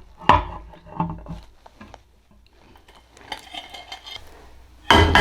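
Cutlery and dishes clinking, a few sharp knocks in the first second and a scatter of lighter clatter later, as beans are poured and scraped out onto a plate.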